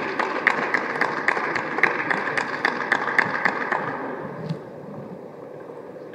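A few people clapping in a hall at about three claps a second, dying away about four seconds in.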